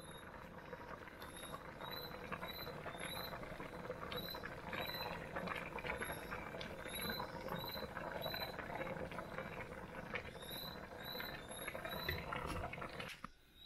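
Pot of chicken and ash gourd stew boiling hard, a steady dense bubbling and crackling that cuts off suddenly near the end.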